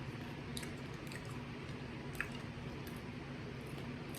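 Person chewing food close to the microphone: faint wet mouth clicks and smacks scattered through the pause, over a steady low hum.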